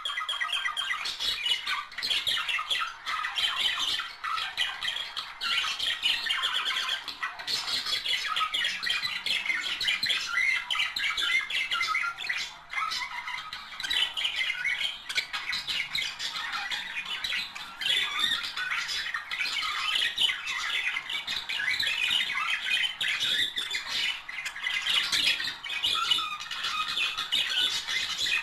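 Budgerigars chattering and warbling without a break, a dense mix of quick chirps, squawks and gurgles.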